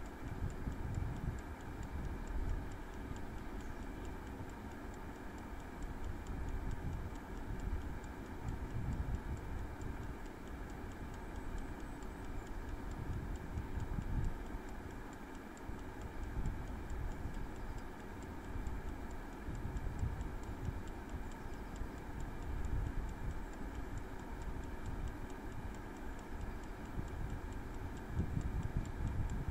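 Prego air fryer running, its fan humming steadily while the clockwork timer ticks evenly and quickly as it counts down.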